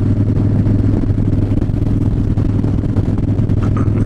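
Harley-Davidson V-twin motorcycle engine running at a steady speed while the bike is ridden.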